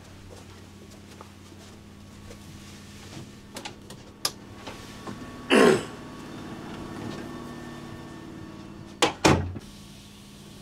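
A wooden interior door being opened with a swish about halfway through, then shut with two sharp knocks of the door and latch near the end. A steady low hum runs underneath.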